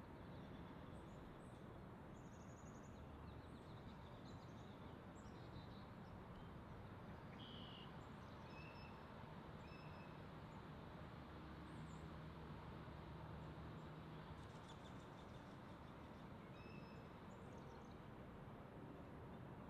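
Faint, short, high bird chirps and calls scattered through a steady hiss of outdoor background noise.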